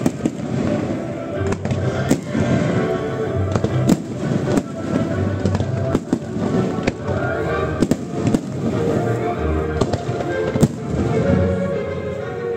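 Aerial firework shells bursting in a display, sharp bangs about once a second at irregular intervals, over music.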